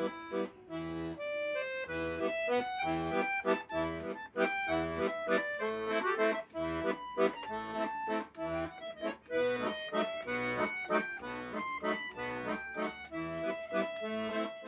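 Chromatic button accordion playing a tune: a melody over a steady, rhythmic bass-and-chord accompaniment from the left hand.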